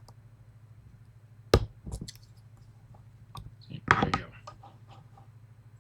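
Pick tapping the key pins of a Medeco lock, the pins clicking as they bounce freely: one sharp click about a second and a half in, a couple more near two seconds, and a quick cluster around four seconds. This free clicking with the sidebar tensioned is the 'clicky test', the sign that the pins' rotations are set correctly.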